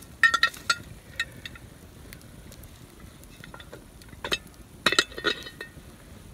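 Camp oven lid clinking as it is handled with a hooked metal lid lifter and set onto the pot: a quick run of ringing metal clinks just after the start, then more clinks about four and five seconds in.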